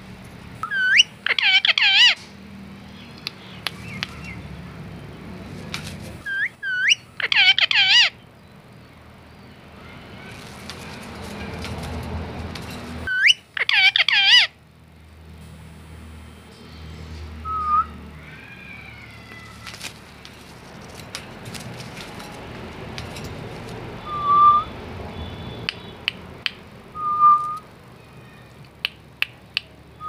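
Indian ringneck parakeet whistling: three loud, warbling whistle bursts several seconds apart, then a few short single notes later on, with scattered sharp clicks in between.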